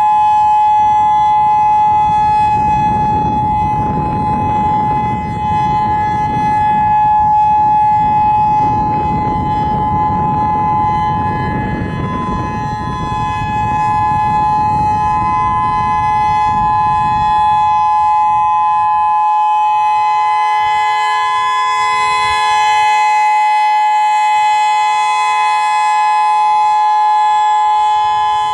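Federal Signal EOWS 612 electronic outdoor warning siren sounding its steady Alert signal: a loud, unwavering tone of several notes held without rising or falling. A low rumble sits beneath it for the first two-thirds and fades out.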